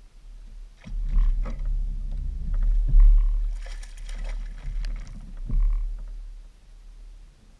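Thumps and a low rumble carried through a bass boat's deck to the boat-mounted camera as the angler moves and works his rod, with a burst of water splashing at the surface beside the boat near the middle.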